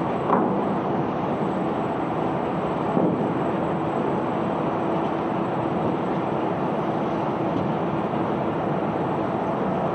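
Self-unloading sand barge's unloading machinery running: a steady mechanical rumble and rushing of sand on the conveyor, with a faint steady hum and a couple of light knocks.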